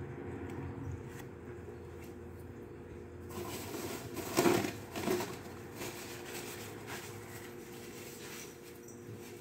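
Close-up eating sounds: noodles being chewed, with a louder slurp about halfway through that comes in two pulses. A steady low hum runs underneath.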